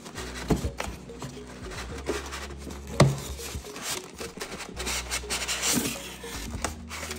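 Cardboard box and paper packaging being handled and rubbed as the box is opened and instruction sheets are pulled out, with scattered clicks and a sharp knock about three seconds in.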